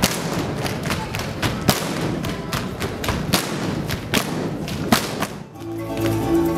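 An audience applauding, with loud individual claps standing out, until music begins about five and a half seconds in.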